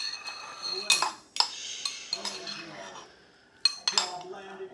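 Metal cutlery clinking and scraping against a bowl of rice and gravy as it is eaten: several sharp clinks with a brief metallic ring, in two clusters near the start and near the end.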